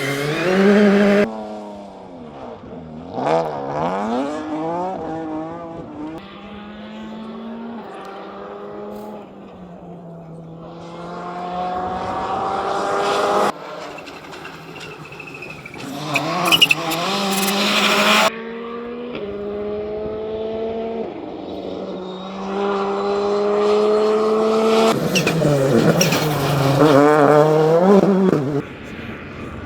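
Rally car engines revving hard on a stage, the pitch climbing through the gears and dropping on lifts and shifts, in several short clips that cut suddenly from one to the next.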